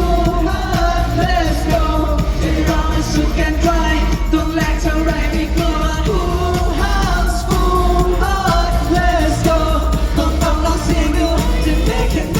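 Live pop music with singing over a strong, steady bass, recorded from the audience.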